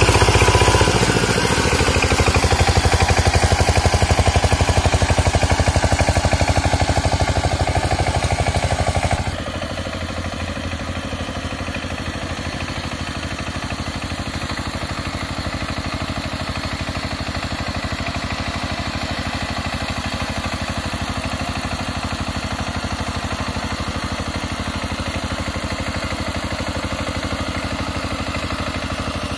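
Single-cylinder diesel engine of a walk-behind power tiller running steadily under load while churning paddy mud. About nine seconds in the sound drops abruptly to a lower, more distant level and carries on steady.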